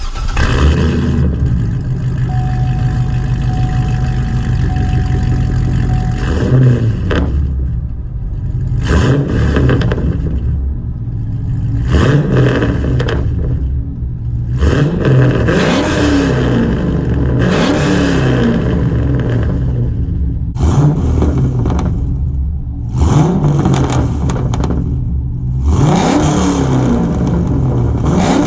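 Straight-piped C6 Corvette LS3 V8 with long-tube headers, an X-pipe and no catalytic converters. It runs steadily for the first few seconds, then is blipped and revved again and again, each rev rising and falling back.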